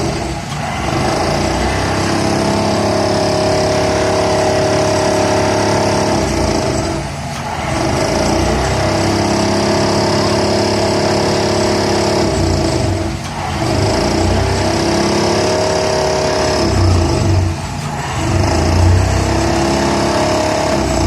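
Excavator running a hydraulic vibratory pile driver: a steady, loud mechanical drone with a low rumble and a held whine, dipping briefly about every five or six seconds.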